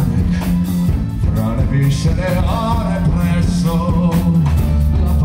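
Live folk-rock band playing: piano accordion, electric bass and drum kit, with drum hits and a wavering melody line over the bass.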